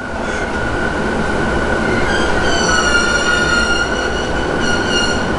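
Interior sound of a JR E233 series electric train braking into a subway station: steady running rumble and a thin steady whine. A high squeal of several tones joins from about two seconds in, fades out, and returns briefly near the end.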